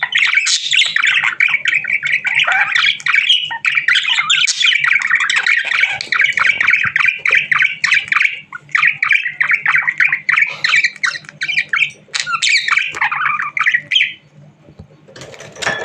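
Budgerigar warbling and chattering, a fast, unbroken stream of chirps and squawks that stops about 14 seconds in.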